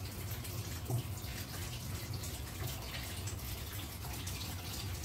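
Pork pieces in water simmering in a pot, a steady bubbling hiss with a low hum underneath, as the pork is boiled to soften it.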